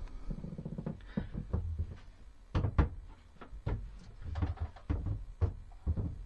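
Handling noises: a run of short knocks and clunks, the loudest about two and a half to three seconds in.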